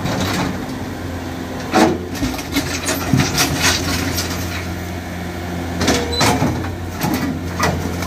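Compact track loader (tracked skid steer) diesel engine running steadily as the machine drives forward, with several short sharp knocks and clanks from the tracks and grapple bucket.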